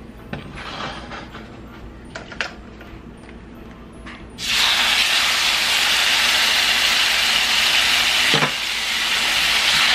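Marinated chicken sizzling loudly and steadily in a hot nonstick skillet, starting abruptly a little under halfway through as the piece is laid in the pan. Before it there are only a few soft handling clicks, and a dull knock comes near the end.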